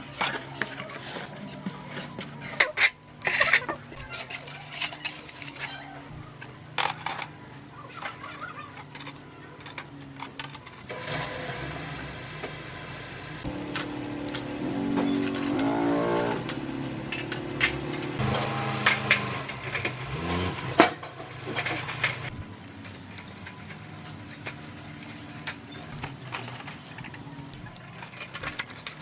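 Scraping and clinking of masonry hand work: a trowel spreading a dry mortar mix and steel wires being handled and bent for roof mesh. Scattered sharp clicks throughout, with a motor engine passing by for several seconds in the middle.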